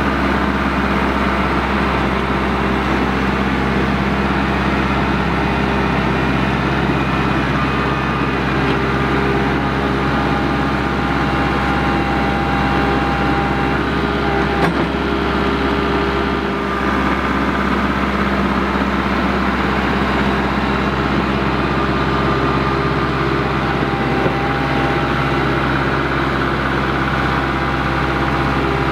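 Kubota MX5400 tractor's diesel engine running steadily as it grades loose dirt with a rear land plane and pushes soil into a pile with its front loader.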